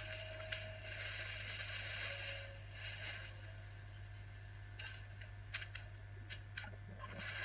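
Steady low electrical hum with a high hiss from Sony BVW-35 Betacam tape playback equipment running into an old Sony TV monitor. A few light clicks come in the second half.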